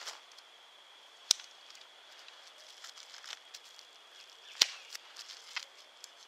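A tape-wrapped package being cut open with a folding pocket knife: two sharp clicks about three seconds apart among faint handling ticks and rustling of tape and plastic, over a thin steady high tone in the background.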